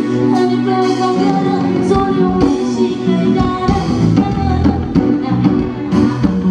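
Live band music with drums and a voice singing.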